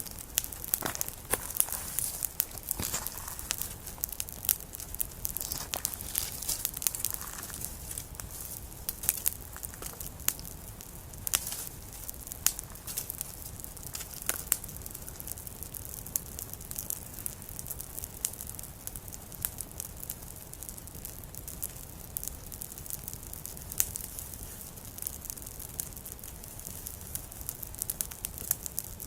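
Small wood campfire crackling, with irregular sharp pops and snaps over a soft hiss, busier in the first half.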